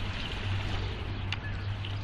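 Water running and splashing with a steady low hum underneath, and a single short click a little past halfway.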